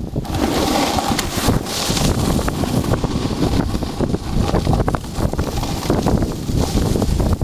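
Wind buffeting the microphone of a camera carried by a snowboarder riding fast, with frequent brief scrapes and knocks throughout.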